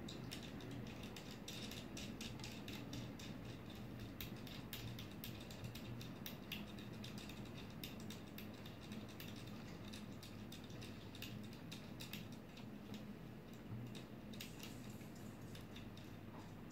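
Faint, irregular small clicks and ticks of hands fitting a new PINDA probe and its wiring into a 3D printer's extruder, over a low steady hum.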